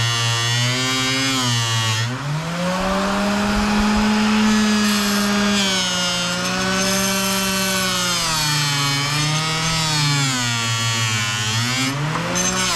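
Miniature bench grinder running with a buffing wheel, its motor pitch sagging and recovering as a metal part is pressed against the wheel. The pitch jumps up about two seconds in, holds, then drops again in the second half.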